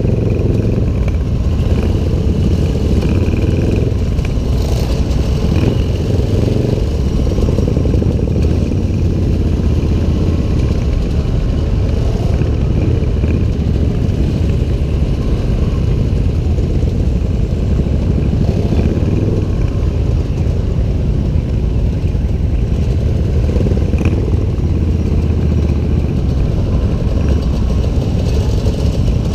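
Motorcycle engines running at low speed as a line of cruiser motorcycles and a Honda PCX scooter ride slowly in procession, a steady low rumble that stays even throughout.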